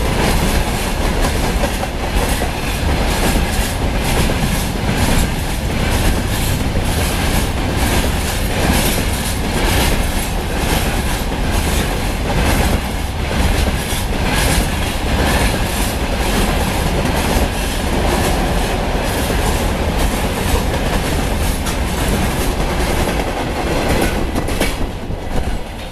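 A freight train's open gondola wagons rolling past at close range, their wheels clattering steadily over the rail joints. The sound eases slightly near the end as the last wagon clears.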